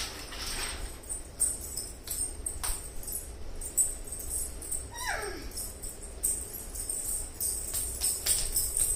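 Small bells jingling in uneven clusters, with a short high cry that falls in pitch about halfway through.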